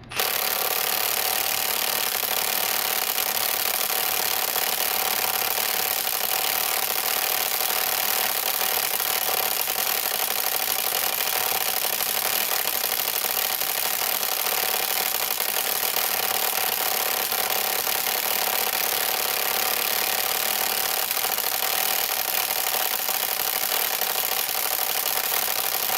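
Cordless impact wrench hammering steadily and without a break, driving against a 3/8-inch drive ratchet that is held locked in a torture test.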